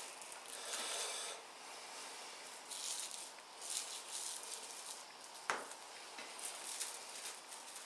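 Aluminium foil crinkling and rustling in uneven patches as it is handled, with one sharp tap about five and a half seconds in.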